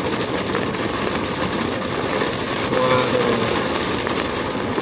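Heavy rain drumming on the roof and windshield of a moving car, heard from inside the cabin, with tyres hissing on the wet road. A brief faint tone sounds about three seconds in.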